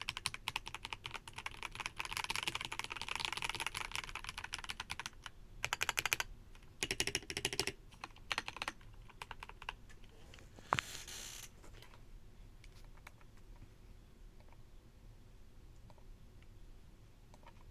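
Typing on a Kemove K98 mechanical keyboard: a fast, dense run of keystrokes, then a few short bursts of typing. After about twelve seconds only scattered faint key clicks remain.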